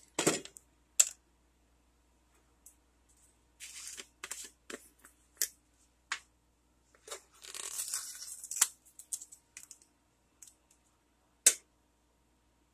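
Handling noises of spice containers and a plastic measuring spoon: scattered clicks and taps, with about two seconds of rustling some seven seconds in.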